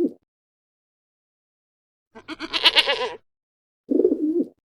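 A bleat with a quavering, wavering pitch, lasting about a second, starting about two seconds in. A shorter, lower call comes near the end, and the tail of a similar one is heard at the very start.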